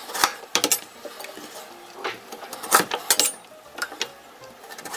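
Kitchen knife cutting burdock root pieces in half on a wooden cutting board: a series of sharp, irregular knocks as the blade goes through the root and strikes the board.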